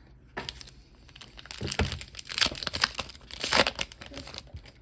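Foil wrapper of a Lorcana trading-card booster pack crinkling and tearing in short bursts as the pack is opened.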